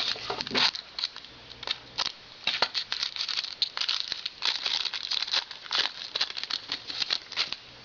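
Wrapper of a trading-card pack crinkling and tearing as the pack is opened by hand, in a run of irregular crackles and rustles.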